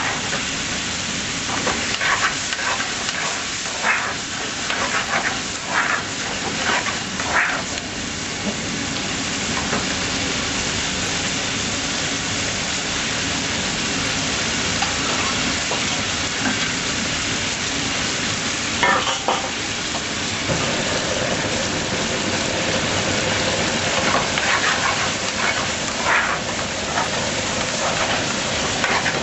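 Chicken tikka curry sizzling in a metal frying pan over a gas flame, with a metal spoon scraping and knocking against the pan now and then: a cluster of strokes over the first several seconds, a few around the middle and more near the end.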